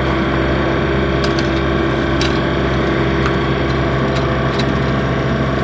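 Motorhome's onboard generator running with a steady hum, with a few light clicks over it.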